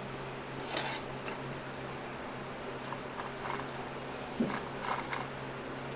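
Scattered light metallic clicks and scrapes of a wrench working the bar nuts on a Poulan 2800 chainsaw's side cover, with a cluster about four to five seconds in, over a steady low hum.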